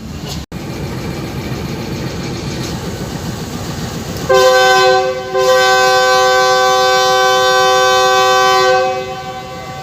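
Train running along at speed, then about four seconds in the GE U20 diesel locomotive's air horn sounds several notes at once: a short blast and then a long one of about three seconds.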